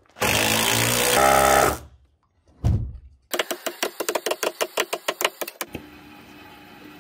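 Power tool and construction noise: a loud whirring burst that rises in pitch, a single thump, then a rapid run of clacking about nine times a second that gives way to a low steady hum.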